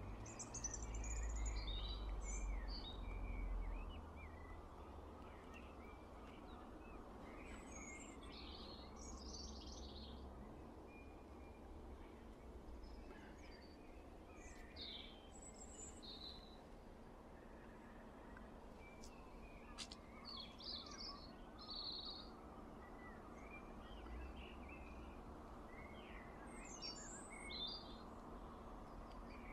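Small birds chirping and singing in short, scattered phrases over a faint steady background noise, with a low rumble on the microphone during the first few seconds.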